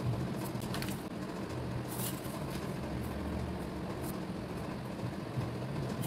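Steady low room hum, with about four short scrapes or rustles as a plastic drafting ruler, a French curve and paper are shifted on a cutting mat.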